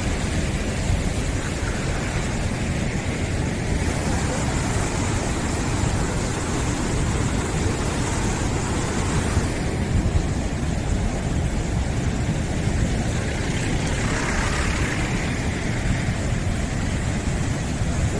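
Steady, unbroken rushing noise of heavy monsoon rain and running water.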